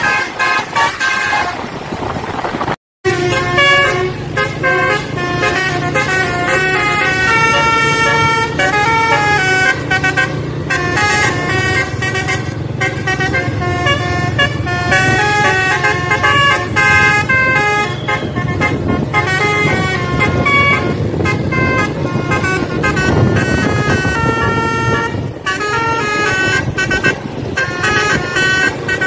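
Tour bus's telolet (basuri) musical horn playing a melody of quick stepped notes over a steady low rumble, with a brief break about three seconds in.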